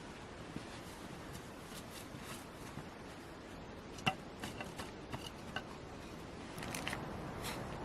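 Light clicks and knocks of small objects, the sharpest a ringing clink about four seconds in, followed by a few softer clicks, over a steady low hiss.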